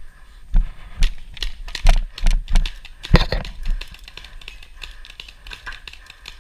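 Paintball markers firing a quick, irregular string of sharp pops, about a dozen shots in the first four seconds, then a few scattered ones.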